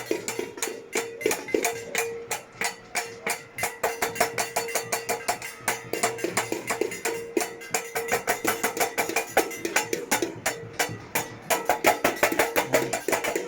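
Many hoe blades and machetes being struck, a rapid, irregular clatter of overlapping metal strikes, with a steady held tone beneath.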